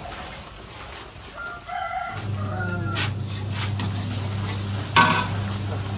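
A chicken calling once in a held, bending call about a second and a half in, over a steady low hum. A sharp clatter comes about five seconds in.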